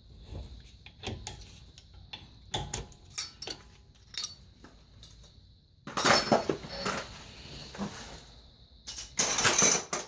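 Metal tools and brake parts clinking and knocking against the caliper of a car's disc brake. About six seconds in, and again near the end, come louder stretches of rattling and scraping.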